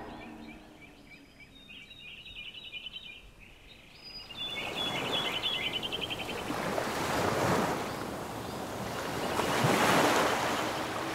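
Ocean surf washing onto a sandy beach: a hiss of breaking waves that comes in about four seconds in and swells twice, loudest near the end. Before it, only faint, high, repeating tones.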